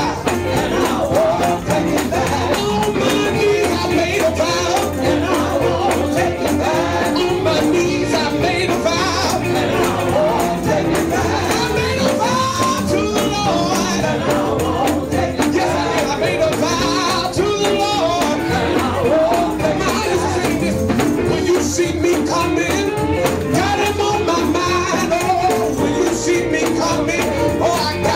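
Up-tempo Pentecostal gospel praise music, with a tambourine shaking steadily over the band and singing voices.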